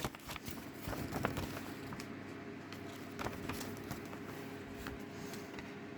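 Faint handling of a plastic DVD case: scattered soft clicks and rustling over a faint steady hum.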